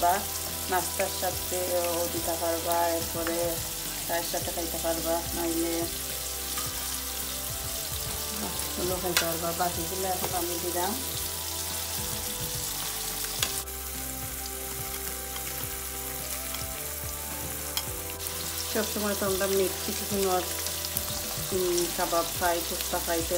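Food frying in hot oil in a cooking pot, with a steady sizzle.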